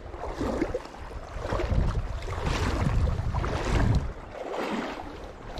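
Water sloshing and swishing around legs wading through a shallow river, in surges about a second apart, with wind rumbling on the microphone.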